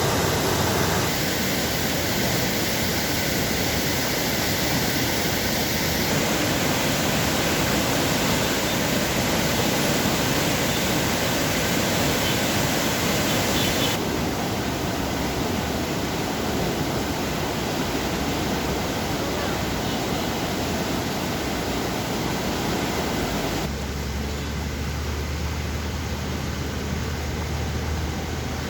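Water rushing steadily through a sluice gate, a loud even roar of falling water whose tone shifts abruptly a few times. A low steady hum joins near the end.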